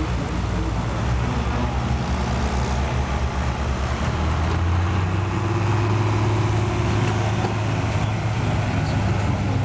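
Allis Chalmers D21 super farm pulling tractor's engine running hard and steady under load during a pull, growing a little louder about halfway through.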